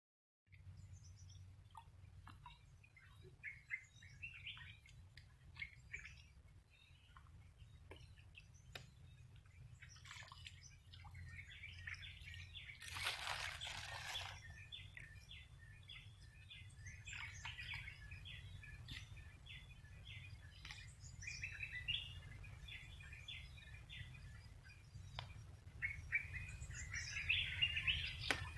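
Small birds chirping, a run of short high chirps repeating over a steady low rumble. About halfway through comes a brief burst of hissing noise.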